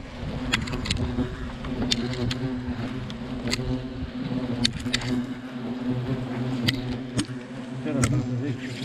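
Many agitated European hornets buzzing close by in a steady low drone, their nest having just been disturbed. Scattered sharp ticks sound over the buzzing.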